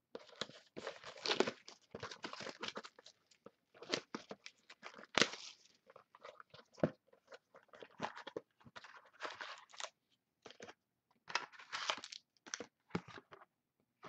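Crinkling, crackling and tearing of trading-card box packaging and pack wrappers being handled and torn open, in many short irregular bursts.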